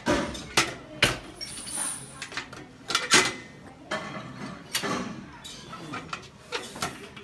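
Irregular metallic clanks and clinks of gym weight equipment, about a dozen sharp knocks, some in quick pairs.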